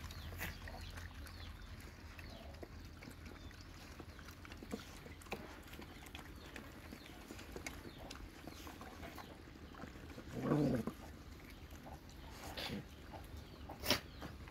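Several dogs eating together from one pan of rice: scattered small clicks of chewing and lapping, with a short low growl from one of them about ten and a half seconds in and a sharp knock near the end.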